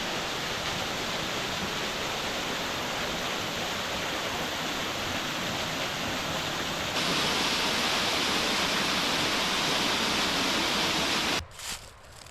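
A waterfall rushing, a steady, even roar of falling water that cuts off suddenly near the end.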